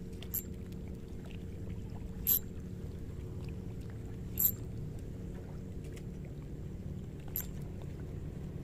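Steady low hum of a boat engine running, with four short, sharp clicks; the loudest come about two and four and a half seconds in.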